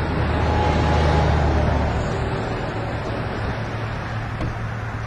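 A vehicle engine runs steadily with road noise. The low hum is strongest for the first two seconds, then eases off.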